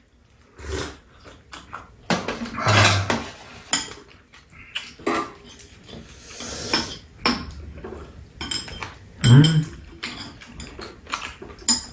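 Chopsticks clicking and scraping against ceramic bowls and a metal serving tray while eating, with scattered knocks as mugs and dishes are handled. A short "mmm" of enjoyment comes about nine seconds in.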